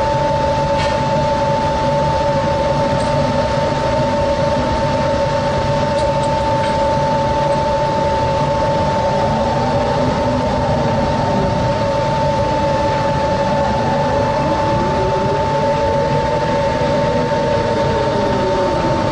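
A stern trawler's deck machinery running while the trawl is shot: a steady mechanical hum with two steady whining tones over a broad rushing noise, and a fainter tone that rises and then falls in pitch in the second half.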